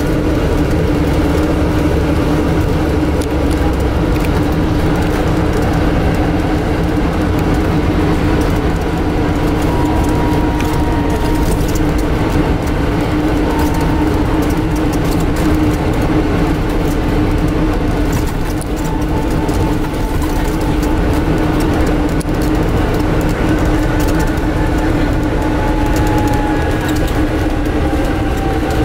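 Inside a Scania N250UD Enviro400 MMC double-decker bus under way: a loud, steady hum from the air-conditioning unit covers most of the engine and ZF gearbox sound, with road and body noise beneath it.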